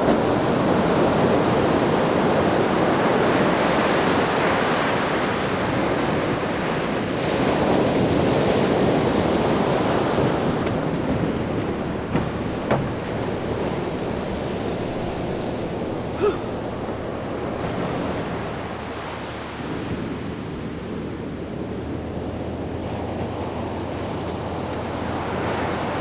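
Ocean surf washing onto the beach with wind on the microphone, louder in the first half and fainter later, with a few brief clicks a little past the middle.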